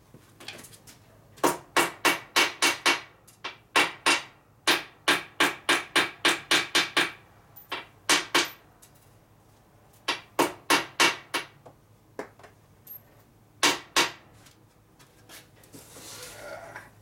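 Hammer beating bent steel washers flat on a steel table: sharp, ringing metal-on-metal blows in quick runs of several strikes, about four a second, with short pauses between the runs.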